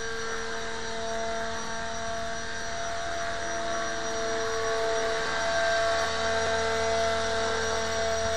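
A small remote-control aircraft's electric motors and propellers whirring steadily in flight, with several steady pitches that grow a little louder after the middle.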